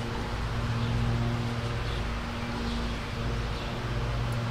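Steady low machine hum with a hiss behind it, unchanging throughout.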